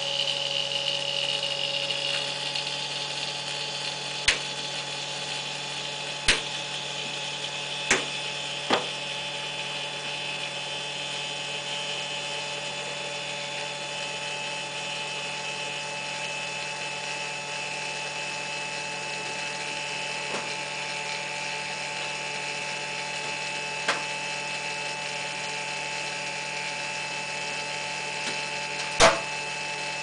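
Sharp metallic clicks and knocks of hand tools working on an air conditioner's outdoor unit, about six in all, the loudest near the end. Under them runs a steady machine hum with a few steady tones.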